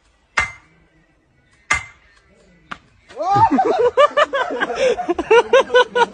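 Two sledgehammer blows on a wooden post, about a second and a half apart, followed by a lighter knock. From about three seconds in, a person laughs hard in quick repeated ha-ha's.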